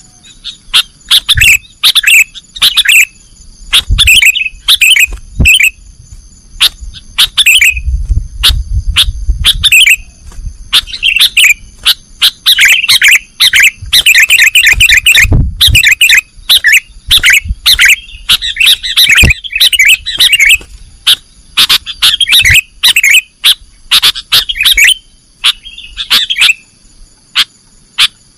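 Sooty-headed bulbul (kutilang) singing loudly in quick runs of short chirping phrases, one after another with brief gaps, over a faint steady high whine.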